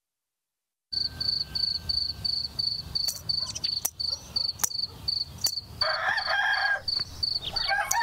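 Cricket chirping, a high pulsed trill about three times a second over a low rumble, starting about a second in after silence. Near the end a rooster calls.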